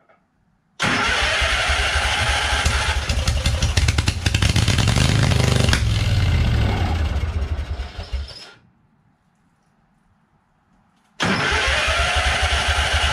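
Riding lawn tractor engine, straight-piped with no muffler, cranked by its electric starter. It catches briefly on sprayed-in contact cleaner, swelling partway through, then dies out about eight seconds in. After a few seconds of near silence, cranking starts again near the end. It fires only on the primed fluid because the tank is almost out of gas.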